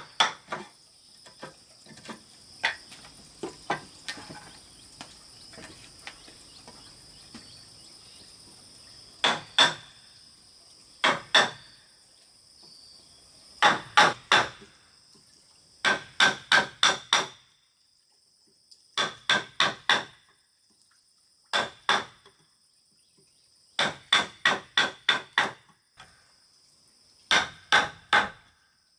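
Hammer striking a chisel into a wooden beam to cut a mortise: sharp knocks in quick runs of three to five, with pauses between, and lighter taps in the first few seconds. A steady high buzz of insects runs underneath.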